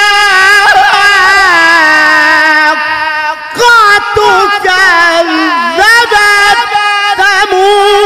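A male qari reciting the Qur'an in the melodic tilawah style through a microphone, drawing out long, wavering, ornamented notes. There is a brief pause about three and a half seconds in before the voice returns strongly.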